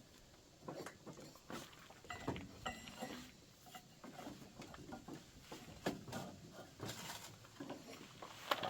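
Faint, irregular clicks, knocks and rattles of hand work on a riding lawn mower while its stretched drive belt is being taken off, with a couple of brief squeaks about two to three seconds in.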